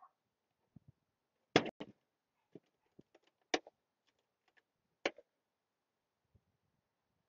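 Sharp plastic clacks and knocks of a hard Makita tool case being shut and handled. There are about four louder clacks, the loudest about a second and a half in, with smaller clicks between them.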